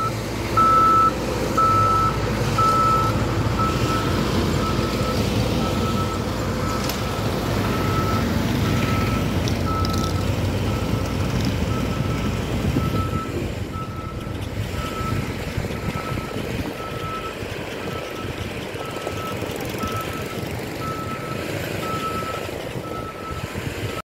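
Caterpillar motor grader's diesel engine running under load, with its reversing alarm beeping about once a second. Both grow fainter in the second half as the grader moves away.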